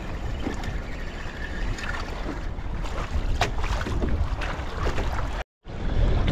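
Wind buffeting the microphone and water sloshing against a kayak hull on choppy sea, with a few light clicks and knocks. The sound cuts out completely for a moment near the end.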